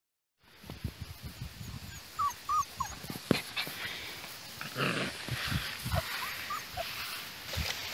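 Five-week-old Great Pyrenees–mastiff mix puppies play-fighting in grass: short whimpers and small yips over rustling and low thumps.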